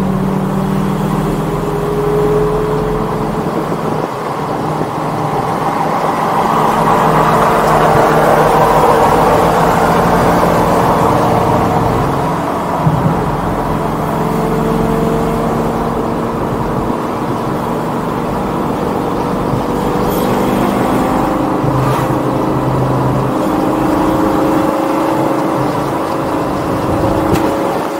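Straight-piped Lamborghini Gallardo's 5.0-litre V10 running while the car is driven. It grows louder for several seconds about a quarter of the way in, and the engine pitch climbs slowly through the second half.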